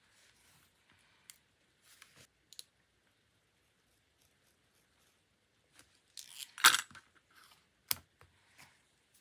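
Paper and stationery handled on a desk for diary decorating: scattered soft taps and rustles, then a louder scratchy noise lasting about a second, about six seconds in, and a single sharp click shortly after.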